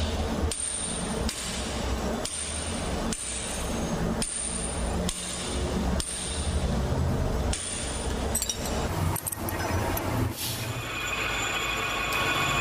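Repeated metal scraping strokes, about one a second, over a steady low machine hum. Around ten and a half seconds in they give way to a steadier running sound.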